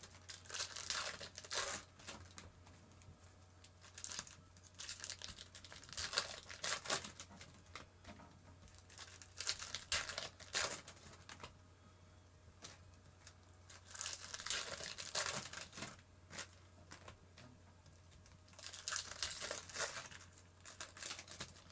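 Crinkling and tearing of trading-card pack wrappers as packs are torn open and handled, in separate bursts every few seconds.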